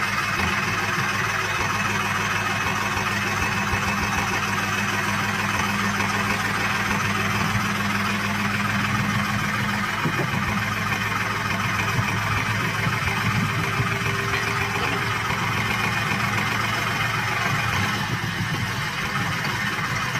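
Sonalika DI 35 tractor's diesel engine running steadily while it drives the hydraulic lift that tips its trailer.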